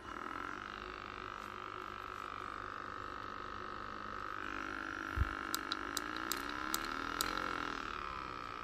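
Massage gun motor running with a steady whine that starts right away. About halfway through its pitch wavers, with a low thump and then several sharp clicks.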